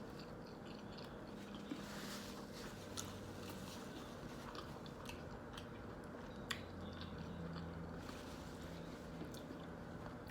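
Close-miked eating: a person biting and chewing food, with scattered sharp wet mouth clicks, the sharpest about six and a half seconds in, over a faint steady low hum.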